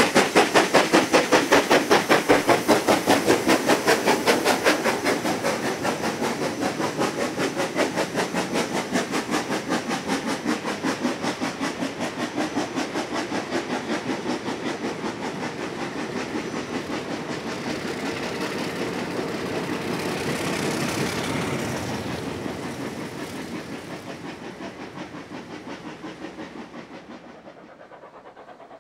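NSWGR C35 class steam locomotive 3526 passing, its exhaust beats chuffing fast and evenly, loud at first and fading as it draws away. The carriages then roll past and the sound dies down near the end.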